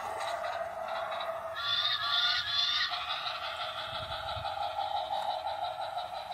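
Fenfa battery toy train's electronic sound effects from its small built-in speaker: a steady tinny tone, with a louder honking horn call about one and a half seconds in.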